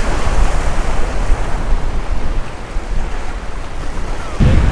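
Waves breaking and washing against the boulders of a rock jetty, with wind rumbling on the microphone. The rumble swells louder near the end.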